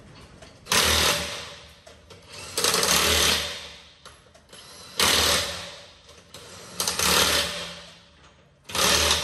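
Impact wrench driving lug nuts onto a truck wheel in five short runs of about a second each, every one starting suddenly and trailing off.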